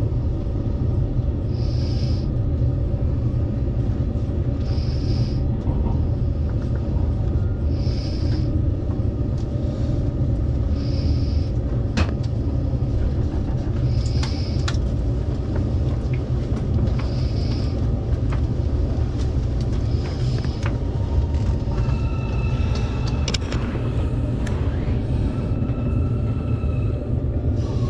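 Cabin noise inside a JR Kyushu 787 series electric express car as it slows into a station: a steady low rumble with scattered sharp clicks, and a short hiss recurring about every three seconds. In the last several seconds, thin high squealing tones come in as the train brakes to a stop.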